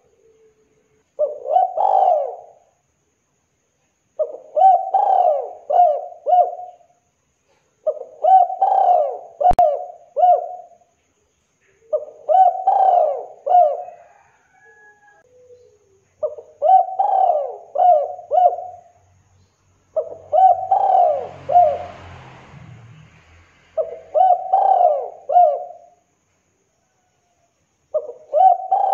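Spotted dove cooing: a phrase of several short coo notes, repeated about every four seconds.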